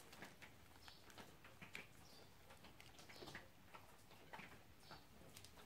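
Near silence, with faint scattered light ticks and a few short, high chirps.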